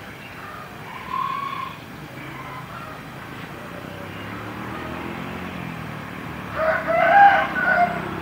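A rooster crows near the end, loudly and in several broken segments, after a shorter, fainter call about a second in. A low engine hum builds underneath from about halfway.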